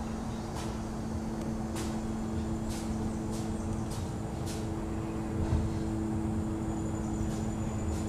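Steady low mechanical hum with a rumble beneath it. A few faint, sharp clicks are scattered through.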